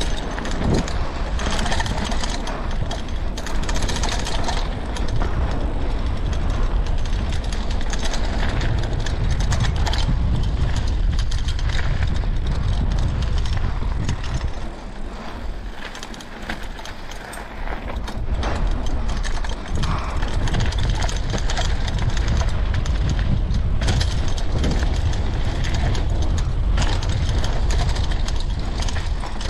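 Mountain bike riding down a dirt trail: tyres rumbling over the ground, the bike rattling, and wind rushing on the helmet camera's microphone. The noise drops for a few seconds about halfway through, then picks up again.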